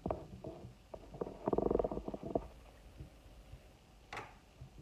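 Egg frying in a nonstick pan, crackling and bubbling, with the densest crackle about a second and a half in and a single sharp click near the end.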